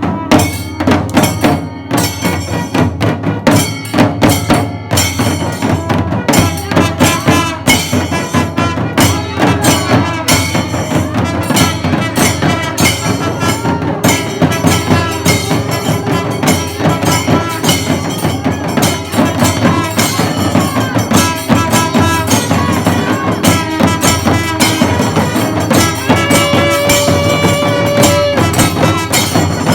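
Kailaya vathiyam temple ensemble playing: drums and cymbals beating a fast, dense rhythm. Near the end a long steady pitched note sounds over the drumming.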